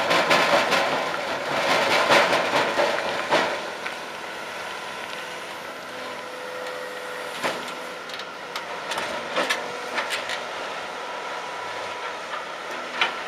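A 1200 mm crusher bucket on a Volvo 360C excavator crushing rock, a loud dense rattle of stones that stops about three and a half seconds in. After that the excavator's diesel engine runs steadily, with scattered knocks as the bucket digs into the rock pile.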